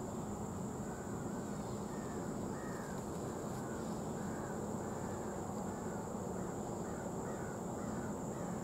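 Freight cars rolling slowly away on a curve with a low, steady rumble. From about a second and a half in, a bird calls over and over in short harsh notes, and insects keep up a steady high buzz.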